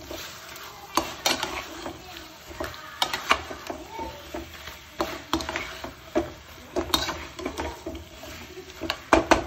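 Steel spoon stirring and scraping mutton pieces in thick masala around a metal kadai, clinking against the pan about once or twice a second, over a steady low frying sizzle: the bhuna stage, the masala being fried down on medium flame.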